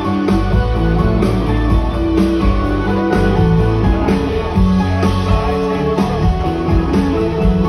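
Live band playing an instrumental passage, with guitar to the fore over sustained chords and bass, and no voice singing.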